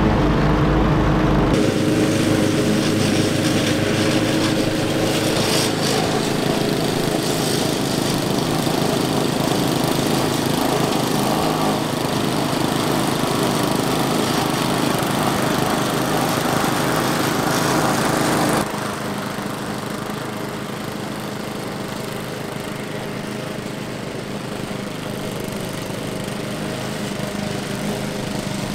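Two walk-behind petrol lawn mower engines running together on a homemade double mower while cutting grass. The sound changes abruptly about 1.5 s in and drops in level about two-thirds of the way through.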